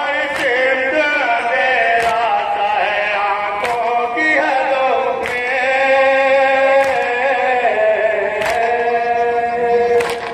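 A man chanting a nauha, a Shia mourning lament, into a microphone in long held melodic lines. Sharp chest-beating (matam) slaps keep time, seven of them about every one and a half seconds.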